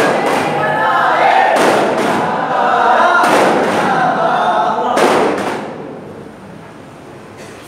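A group of men chanting in chorus while beating daf frame drums in unison, with the strikes falling in pairs about every one and a half seconds. The chanting and drumming stop about five and a half seconds in, leaving quieter room sound.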